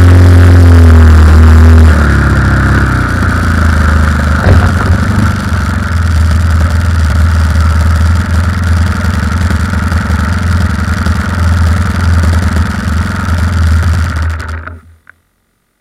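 Model aircraft motor heard loud from an onboard camera, its pitch stepping down about two seconds in and then running steadily, with rushing wind noise over it. The sound cuts off suddenly near the end.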